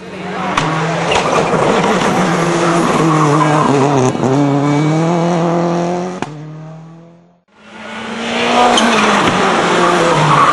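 Rally cars driven hard on a special stage, engines at high revs with the pitch dropping and climbing through gear changes. The first run fades out about six seconds in, and a second fades up near the end.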